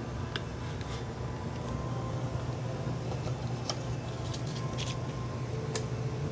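A steady low hum with scattered light clicks and taps, several of them about four to five seconds in, from things being handled on a table.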